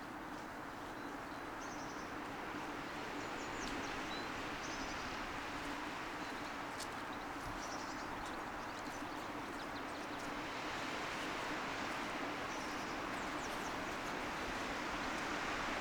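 Steady rushing of wind through trees that slowly grows louder, with short high bird chirps here and there.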